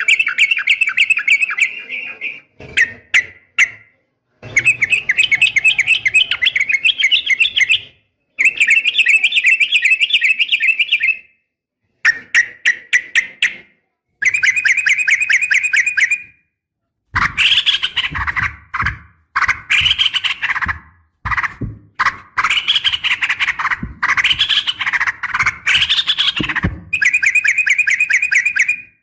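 Yellow-vented bulbul (trucukan) calling in bursts of fast chattering trills, each lasting two or three seconds with short pauses between. From about two-thirds of the way in, the phrases become louder, more varied rising-and-falling calls. The calls are presented as a female calling to a male, for use as a lure.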